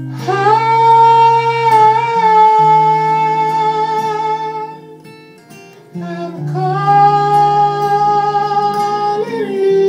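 A man singing live over acoustic guitar, holding two long high notes with a quieter gap of about a second between them. The second note slides to a new pitch near the end.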